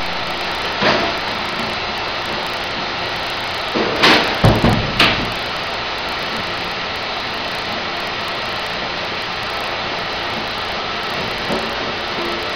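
Machinery running with a steady noise, broken by knocks: one about a second in, a quick run of four or five clunks around four to five seconds in, and a fainter one near the end.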